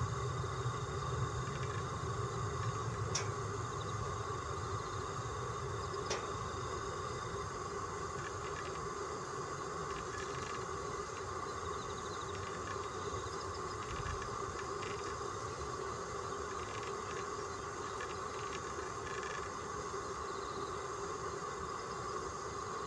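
Steady background hum and hiss with a low rumble that eases off after the first few seconds; two faint clicks about 3 and 6 seconds in.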